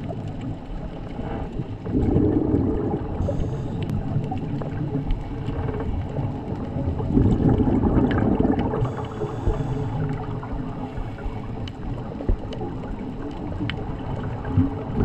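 Underwater recording of a scuba diver's exhaled regulator bubbles, gurgling in two long bursts about five seconds apart over a steady low underwater rumble.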